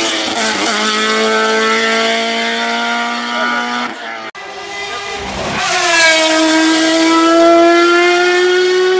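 Race car engines at high revs climbing a hill road. The first car holds a loud, steady note. After an abrupt break at about four seconds, a second car comes in quieter and grows louder, its engine note rising as it accelerates toward the end.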